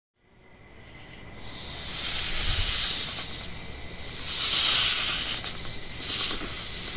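Night insects chirring steadily, with a hissing that swells and fades about three times.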